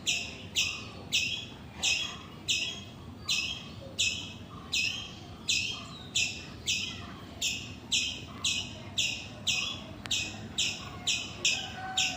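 A forest animal's harsh, rasping call, repeated steadily about twice a second.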